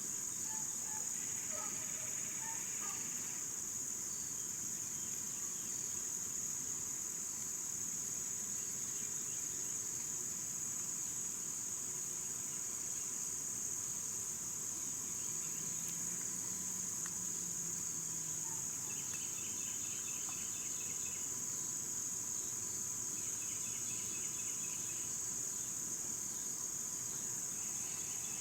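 A steady chorus of insects, most likely crickets, making a continuous high-pitched drone. Twice in the second half, short pulsed trills rise briefly above it.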